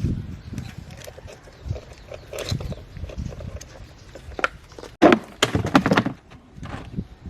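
Irregular knocks, clatter and short scraping noises of parts being handled and worked on, with a sharp knock about five seconds in followed by a busier run of clatter.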